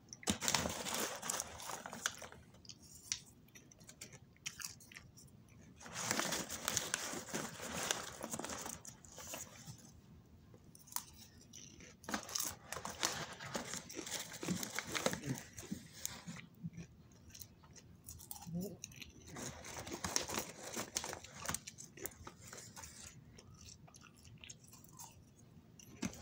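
Crunchy chewing of popcorn close to the microphone, in stretches of a few seconds with quieter pauses between.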